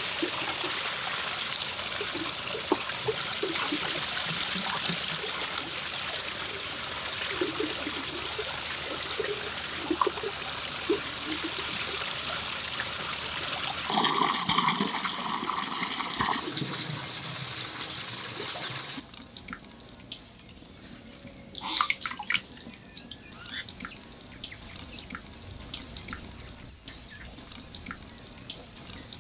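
Water running from a spout into a stone washing basin and splashing out, followed by water gushing from a pipe outlet onto wet ground. About nineteen seconds in it gives way to a quieter stretch of small pops and drips as a clay pot of curry simmers and liquid is poured into it.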